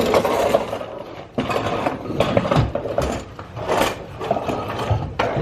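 Hand ratchet wrench clicking in several runs of quick strokes, working a stubborn nut or bolt.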